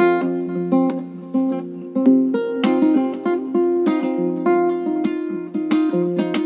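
Background music played on a plucked acoustic guitar, single notes picked several times a second in a steady flowing pattern.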